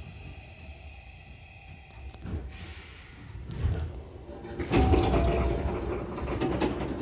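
Hankyu commuter train's sliding passenger doors opening at a station stop. A short hiss of air comes about two and a half seconds in, then a sudden louder rush and rumble as the doors slide open about four and a half seconds in.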